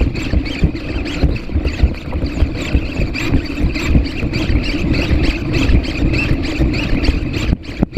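Servo motors of a PhantomX hexapod walking robot whining steadily as it moves, with many irregular low knocks underneath. The whine cuts out briefly near the end.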